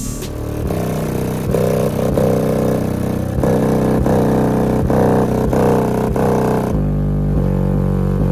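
A Kicker L7 Q Class square car-audio subwoofer playing loud bass at full cone excursion. The deep bass notes change about two-thirds of the way through.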